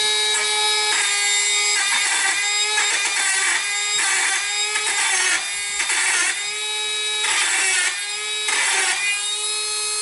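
A small high-speed power grinding tool runs with a steady whine while its bit is pressed against the nub on a metal stud. The grinding comes in repeated bursts about once a second, with a short pause near the end.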